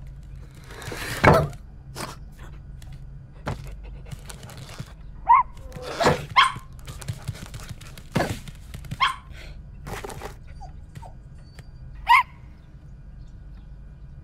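A dog giving four short, high yips, mixed with several dull thumps. The loudest thump comes about a second in.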